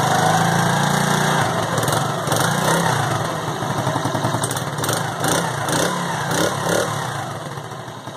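Union Star 70cc motorcycle's single-cylinder four-stroke engine being revved: held at raised revs at first, then given several quick throttle blips, and dying down near the end.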